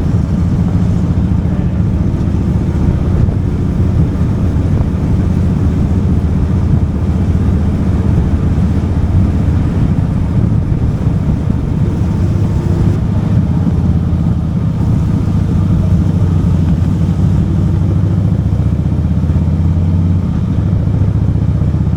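Motorcycle engine running at a steady cruising speed, with a steady low drone throughout.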